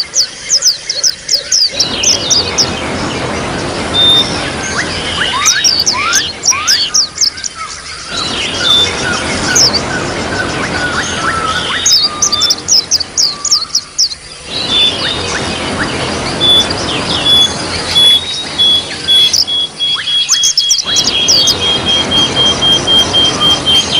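Small songbirds chirping in quick runs of falling notes over a steady trickle of water. In the second half one bird keeps up a long run of evenly repeated short notes that fall slightly in pitch.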